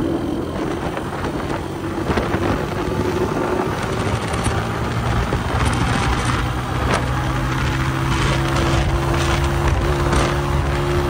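Honda CG 125's single-cylinder four-stroke engine running through an aftermarket Goshi silencer as the bike is ridden; from about seven seconds in the exhaust note holds a steady pitch.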